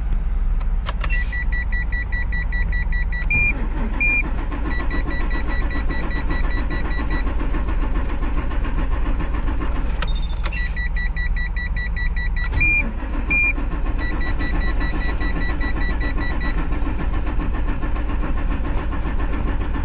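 Truck dashboard warning buzzer beeping rapidly, broken by two longer beeps, in two sets about nine seconds apart as the ignition is switched on, each set starting just after a click, over a steady low hum. The truck's engine has died from running out of fuel, with the low-fuel warning lit.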